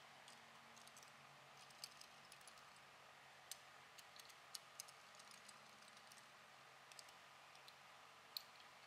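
Faint, irregularly spaced metal clicks from a socket on a long extension working the connecting-rod cap bolts of an engine block, over near silence.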